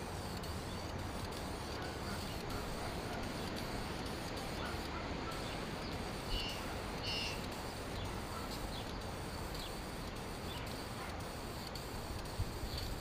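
A few faint bird calls, short chirps about halfway through, over a steady background noise.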